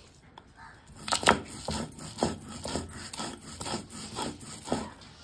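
Stone roller (nora) grinding fried pumpkin seeds and onion on a flat grinding stone (shil), with a rasping, scraping sound in repeated strokes about two a second. The loudest stroke comes about a second in. The paste is being ground wet with onion juice and no water.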